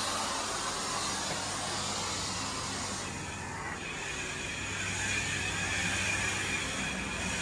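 Steady hiss and low hum of a carpet-cleaning extraction machine running, with a faint high whine joining about halfway through.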